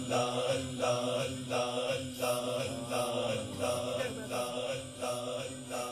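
A man's voice chanting 'Allah' over and over as dhikr, one call after another in a steady rhythm, slowly getting quieter.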